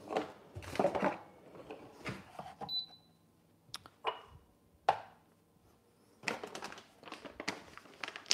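Things being handled and set down on a kitchen counter: a string of separate clicks and knocks, with one short high beep about three seconds in. Over the last two seconds a bag of coffee beans rustles and crinkles as it is picked up.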